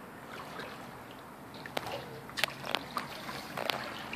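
Pool water sloshing and lapping against a home-built fishing torpedo floating at the pool edge, with a few sharp little splashes and slaps in the second half.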